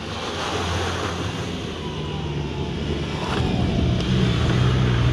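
Off-road 4x4 SUV's engine running under throttle as it drives closer along the course, growing louder from about two seconds in, with wind buffeting the microphone.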